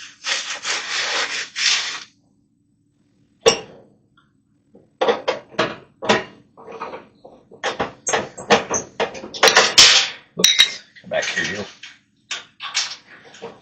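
Sheet-metal parts of a dryer's heating element assembly scraping and clattering as they are handled and fitted into place. There is a dense stretch of scraping at the start, a sharp knock about three and a half seconds in, and then a run of short clatters and rubs.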